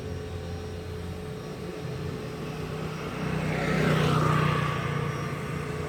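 Tarot 450 Pro electric RC helicopter flying, its rotor and motor running steadily, growing louder to a peak about four seconds in as it passes close, then easing off.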